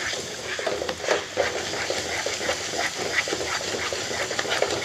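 A wooden spatula stirring and scraping a thick, sticky mango peda mixture around a nonstick kadai in quick, even strokes, about two to three a second. The mixture is at the stage where it pulls away from the sides of the pan.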